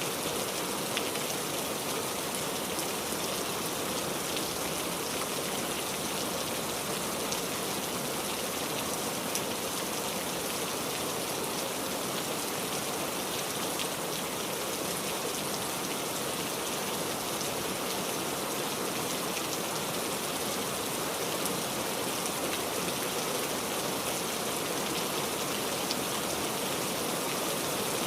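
Steady rain falling, a continuous hiss with many fine drop ticks and no change in intensity.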